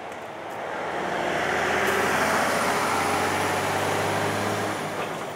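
A heavy-haul truck towing a long multi-axle trailer loaded with a Shinkansen car passes close by. Its diesel engine runs steadily under tyre and road noise. The sound swells about a second in and falls away near the end.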